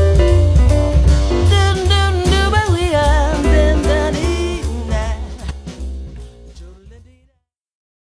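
A Nokia E5/E7 ringtone playing: band music with drums, bass and a wavering lead melody. It fades out and stops about seven seconds in.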